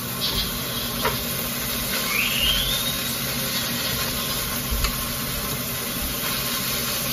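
Ground beef sizzling steadily in a frying pan as it is stirred with a wooden spoon, with a few light scrapes and a short rising squeak about two seconds in.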